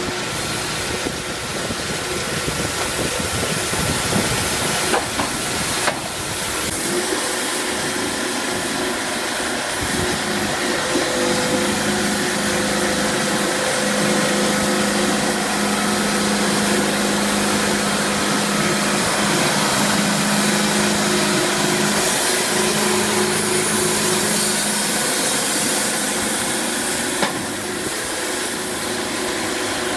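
Sawmill machinery running steadily, a loud mechanical hum with hiss; a stronger steady hum comes in about eleven seconds in.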